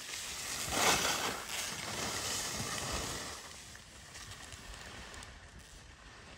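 Telemark skis scraping and hissing over packed, groomed snow as a skier turns past close by. It is loudest about a second in and fades after about three seconds as the skier moves away.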